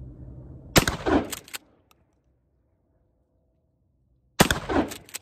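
Two blasts from a Mossberg 590A1 pump-action 12-gauge with a 14-inch barrel, firing 00 buckshot, about three and a half seconds apart. Each shot trails off over about half a second.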